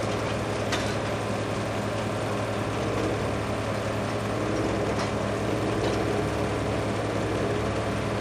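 Forestry forwarder's diesel engine running steadily while its hydraulic crane lifts logs, with a few light clicks and knocks.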